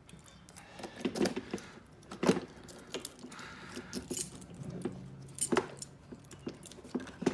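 A padlock being unlocked on the latch of a hard plastic case: metallic jingling and scattered sharp clicks, the loudest about five and a half seconds in.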